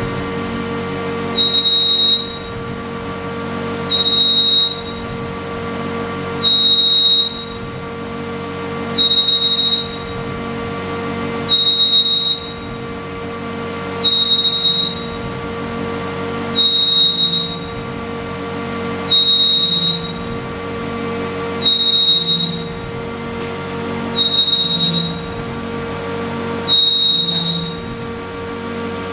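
Electronic warning beeper sounding a high single-tone beep of about a second, every two and a half seconds, over a steady machine hum made of several fixed tones.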